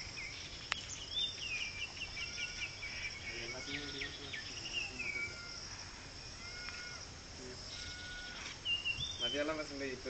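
Steady high-pitched insect chirring, with repeated high chirping calls over it.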